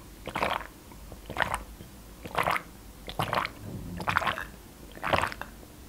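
A person gulping water from a glass, close to the microphone: a swallow about once a second, six or so in a row.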